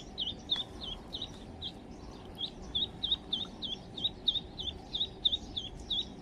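Duckling peeping over and over: short high peeps, about three to four a second, keeping up a steady rhythm.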